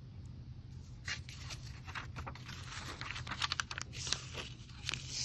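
Paper book pages rustling and crinkling with small clicks as they are handled and turned, over a faint steady low hum.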